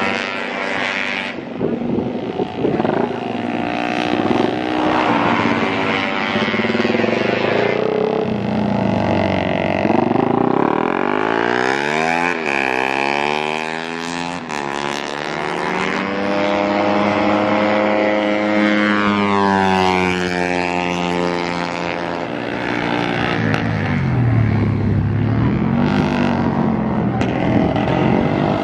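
Racing motorcycle engine revving hard around a circuit, its pitch climbing and dropping again and again with gear changes and as the bike passes by and moves away.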